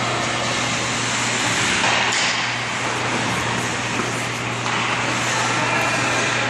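Ice hockey play on a rink: a steady wash of noise from skates on the ice, with a sharp stick or puck knock about two seconds in, over a constant low hum.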